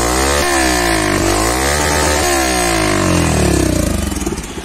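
Yamaha FZ-X's 149 cc single-cylinder engine revved twice through an aftermarket Akrapovic silencer fitted with its dB killer. The exhaust note rises and falls with each blip of the throttle, then settles back to idle near the end.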